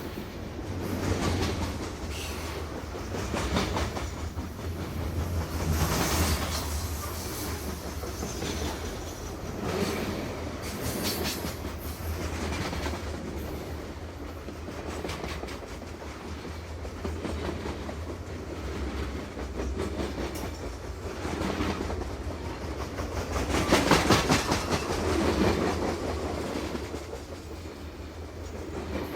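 Train running along the rails: a continuous rumble over a steady low hum that swells and eases several times, loudest about four-fifths of the way through.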